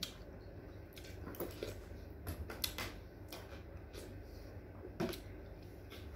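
Eating sounds: a metal spoon clicking and scraping against plastic food containers and dishes, with scattered soft mouth noises of chewing, a few sharp taps spaced irregularly, over a low steady hum.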